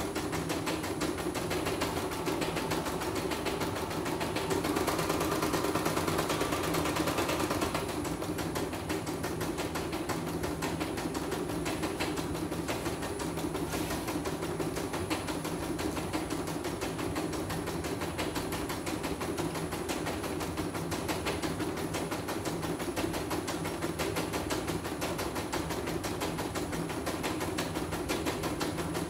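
Portable computerized embroidery machine stitching a design, its needle running at a rapid, steady rhythm over a constant motor hum. The stitching gets a little louder for a few seconds about five seconds in.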